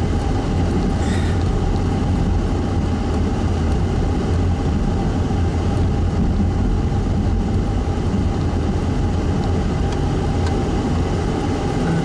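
Car engine and road noise heard from inside the cabin while driving, a steady low rumble with no sudden changes.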